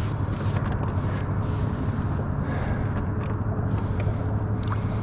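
Boat motor running steadily, moving the boat: a constant low hum with a faint steady whine above it.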